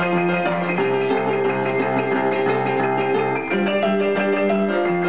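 Upright piano played in rock-and-roll style, pounding chords over a bass line that changes chord a few times.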